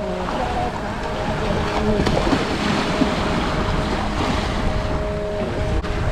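Sea surf washing onto a sandy beach, with wind buffeting the microphone.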